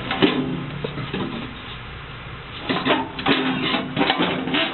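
Metal knocking and rattling as the HVAC blower motor and its housing are handled and turned: one sharp click near the start, then a run of clattering knocks from a little before three seconds in.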